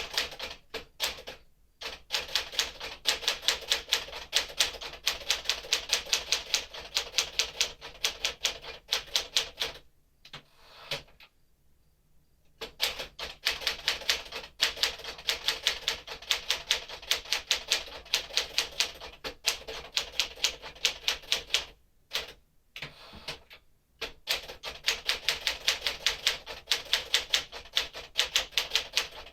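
1958 Smith-Corona Clipper manual typewriter being typed on: long runs of rapid, sharp key strikes, broken twice by short pauses.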